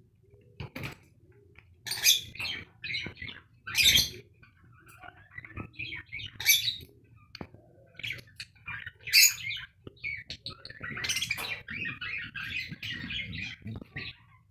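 Budgerigars chirping, with several short, loud bursts of splashing and wing-flapping as a budgie bathes in a shallow water dish; a run of busy budgie chatter fills the last few seconds.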